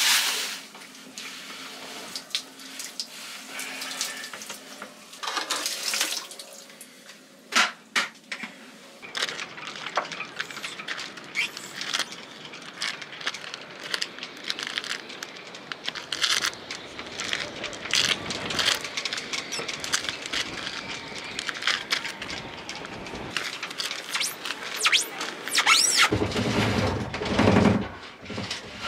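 Boiling water poured from an electric kettle and splashing over a seized steel rudder stock to loosen it, among scattered knocks and clatter, with a loud low rumble near the end.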